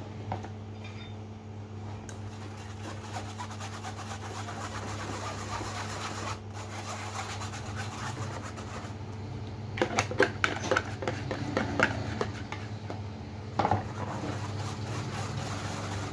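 Wire whisk scraping and clicking against a stainless steel mesh sieve as lumpy batter is pushed through it, with a rapid run of clicks about ten seconds in and a shorter burst near the end, over a steady low hum.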